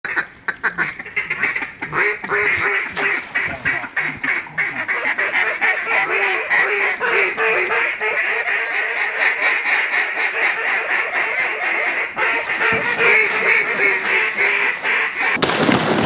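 Ducks quacking and chattering in a fast, continuous stream of calls. Near the end it is cut off abruptly by loud music.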